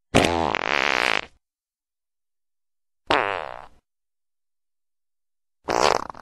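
Three separate fart sounds with dead silence between them: a long one of over a second at the start, a shorter one about three seconds in, and a third near the end.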